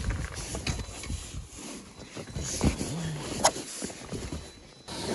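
Faux-leather car seat cover being pulled and worked down over a fabric car seat: irregular rustling and scuffing of the material against the seat, with a few sharp clicks, one sharper than the rest about three and a half seconds in. A brief hum or grunt from the person fitting it comes just before that click.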